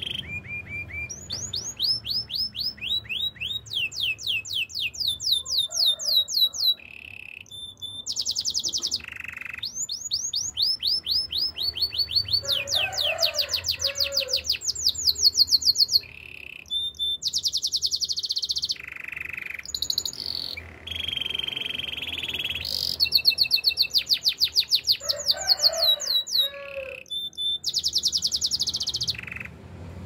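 Canary singing: phrases of fast trills, each a quick run of the same high note repeated, changing pitch and speed from phrase to phrase, with short pauses between phrases.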